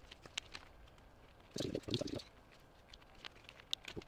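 Faint, scattered clicks and rustles of small relay parts (coil springs, spring clips and contact pieces) being taken apart by rubber-gloved fingers and set down on a workbench mat, with a short louder patch of handling noise about one and a half to two seconds in.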